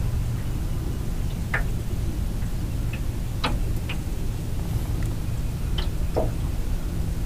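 A steady low hum with about half a dozen short, light clicks and ticks scattered irregularly through it.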